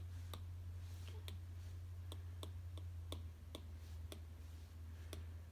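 An Apple Pencil's plastic tip tapping lightly and repeatedly on an iPad's glass screen as it dabs with a soft eraser brush, about three small clicks a second, over a steady low hum.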